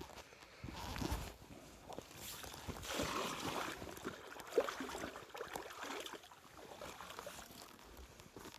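Water splashing and sloshing irregularly as a large carp moves in the landing net at the water's edge, with a sharper splash about four and a half seconds in.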